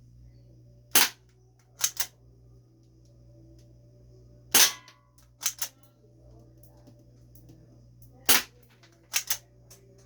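Spring-powered airsoft pistol (Game Face Stinger P311) firing three single shots a few seconds apart, each a sharp snap. About a second after each shot come two quicker, quieter clicks.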